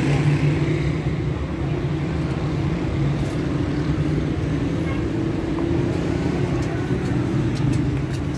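Steady low drone of city street traffic, with vehicle engines running close by on the road.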